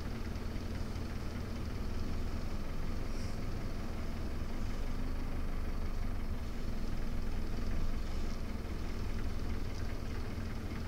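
Bus engine running with a steady low drone and road noise, heard from inside the bus cabin.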